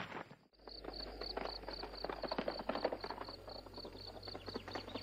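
Crickets chirping steadily, about four short high chirps a second, with irregular clopping of horses' hooves underneath. Both start about half a second in, after a moment of near silence.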